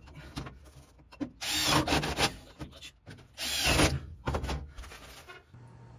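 Power drill boring through a sheet-metal patch on a truck cab floor, in two short bursts about two seconds apart, with clicks and taps of handling in between.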